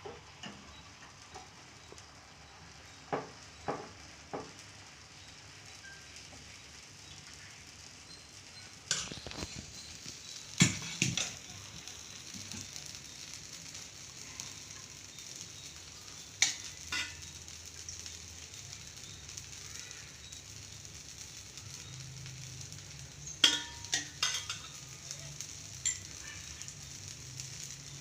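Scattered clinks and knocks of kitchen utensils, in small clusters, over a steady faint hiss.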